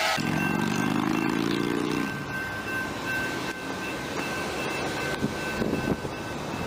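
Freight train of hopper cars rolling past a level crossing, a steady high squeal over the rumble of the cars. A low droning tone rises slightly in pitch for about the first two seconds.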